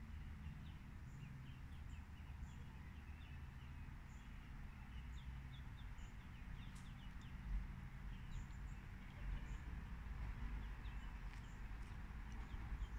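Mallard ducklings peeping: many short, high, falling peeps scattered throughout, over a low steady rumble.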